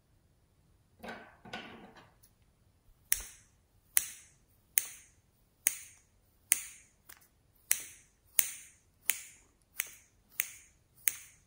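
Scissors snipping through a soft clay dragon-fruit slice: about a dozen sharp snips, a little under a second apart, starting about three seconds in, after a short rustle.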